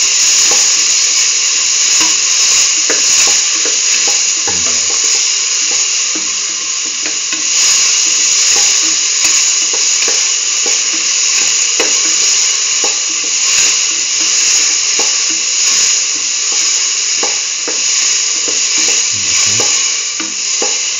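Diced chayote sizzling steadily as it fries in a steel pan, with scattered light ticks from the stirring spoon against the pan.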